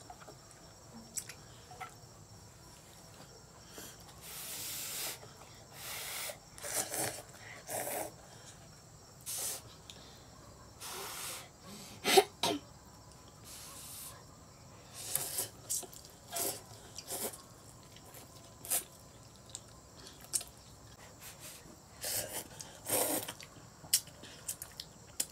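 Noodles being slurped from chopsticks in repeated short, wet sucking bursts, with a sharp knock about halfway through.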